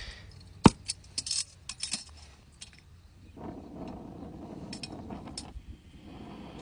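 Sharp metallic clicks and clinks from handling oxy-acetylene torch gear: one sharp click about a second in, a quick cluster of clicks after it, and a few more near the end, with a soft hiss in between.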